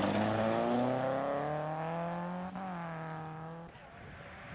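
A vehicle engine accelerating hard, its pitch rising steadily. About two and a half seconds in there is a brief break and dip in pitch, as at a gear change, then it holds steady and fades away about a second later.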